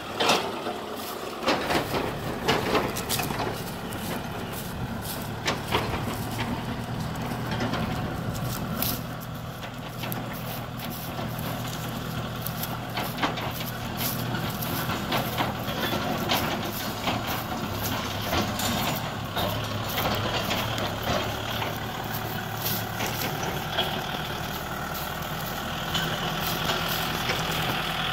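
Kubota M6040SU tractor's diesel engine running steadily as it works across a field, with frequent sharp clanks and knocks, thickest in the first several seconds.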